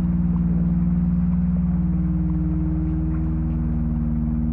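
Ambient modular-synthesizer drone from a VCV Rack patch: several low held tones with a fast, even pulsing flutter, laid over a steady hiss of recorded heavy rain.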